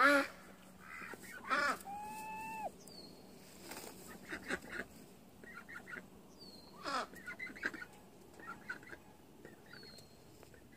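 Scattered farmyard poultry calls from a strutting turkey tom and the domestic waterfowl on the pond: short calls, one held call about two seconds in, a louder falling call about two-thirds through, and faint high chirps now and then.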